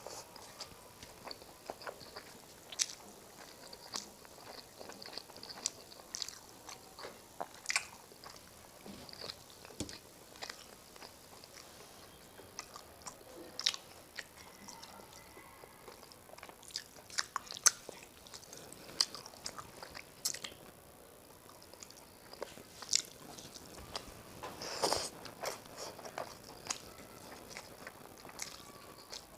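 Close-miked eating: a person chewing big mouthfuls of rice with fish curry, with sharp wet mouth clicks and smacks at irregular intervals.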